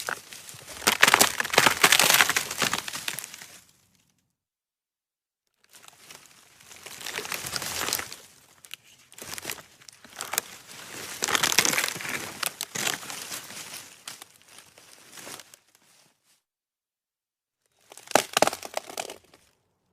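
Dry wood snapping and crackling in dense runs of sharp cracks. There are three runs: one at the start, a long one through the middle, and a short one near the end, with dead silence between them.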